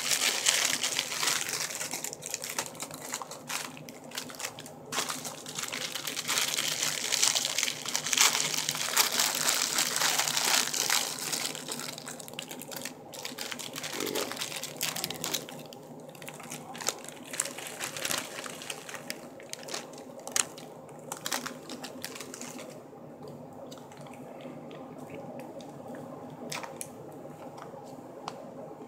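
Plastic food wrapping crinkling and crackling as it is handled and pulled open, dense for the first ten seconds or so, then thinning to scattered crackles and clicks.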